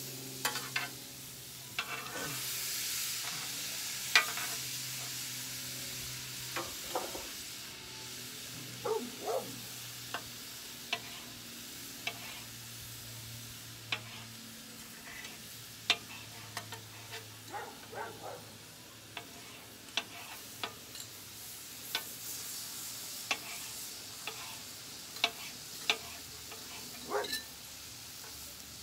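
Food sizzling on a hot steel flat-top griddle, louder in the first few seconds and then softer, with irregular sharp clicks and scrapes of metal spatulas and tongs against the cooking surface as cubed steak is chopped and turned.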